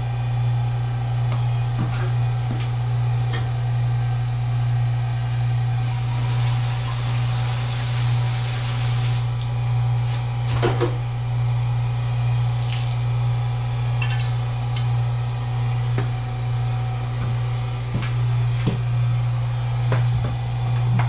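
Steady low hum of the bulk milk tank's agitator motor stirring the milk, with a loud hiss for about three seconds near the middle and scattered clanks and knocks.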